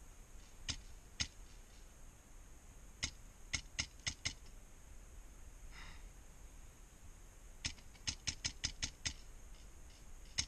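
Airsoft gun firing sharp semi-automatic shots: two single shots, then a quick string of five, then a faster string of about seven, and one more near the end.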